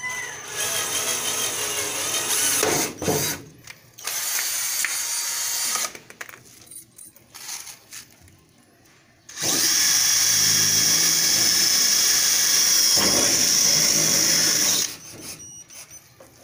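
Cordless drills running in bursts on sheet metal. First a drill fitted with a rivet-gun attachment runs in short bursts of about two seconds, setting rivets. After a pause of about three seconds, a drill runs steadily for about five seconds with a high whine, boring through the sheet metal.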